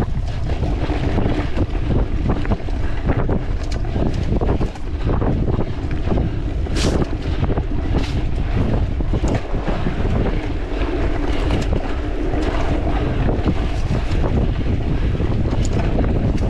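Wind buffeting an action camera's microphone during a mountain-bike ride, a steady rumble under the rattles and knocks of the bike over rough trail. The sharpest knock comes about seven seconds in.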